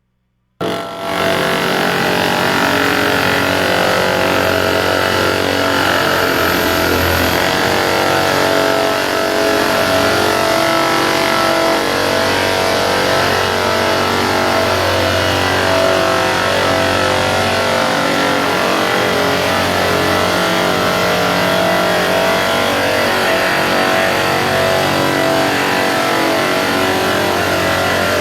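Large electric riding drum sander running steadily while sanding a hardwood gym floor, a constant motor hum and grinding that starts abruptly about half a second in.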